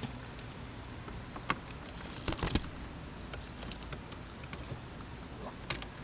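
A few light clicks and taps from a punch and hand tools working a security bolt out of a steering lock, with a small cluster of them about halfway through and another near the end.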